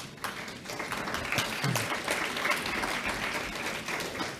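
Audience applauding, a dense patter of many hands clapping that swells within the first second and tapers off near the end.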